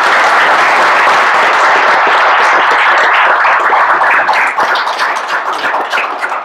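Audience applauding: a dense, steady clatter of many hands clapping that starts to die down near the end.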